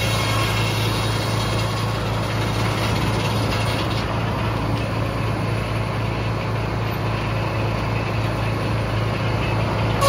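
Frick sawmill running with a steady engine-like drone; the higher part of the sound drops away about four seconds in.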